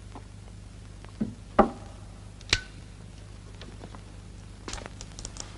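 A few sharp knocks of objects being handled and set down, the one about two and a half seconds in with a brief ring, then a quick run of soft clicks near the end, over a steady low hum.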